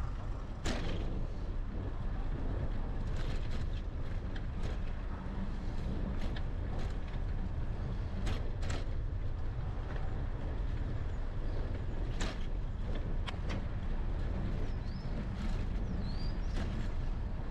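Steady low rumble of a moving bicycle, heard from a camera mounted on the bike: tyre and wind noise, with a few scattered clicks and rattles.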